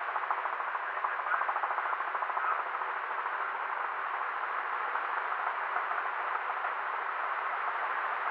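Helicopter in flight: a steady rush of engine and rotor noise with a rapid, fine chop from the rotor blades, heard with the bass cut off.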